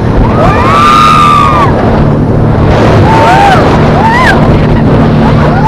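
Motorboat engine running steadily with wind and water noise. Over it come several high cries that rise and fall in pitch: a long one about half a second in, then shorter ones later.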